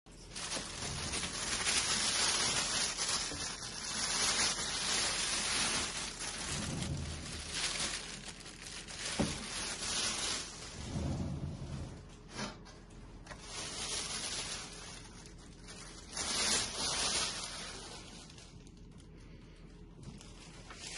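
Clear plastic wrapping crinkling and rustling as it is pulled off a stainless steel waffle maker, with a couple of sharp clicks partway through. The rustling dies down near the end.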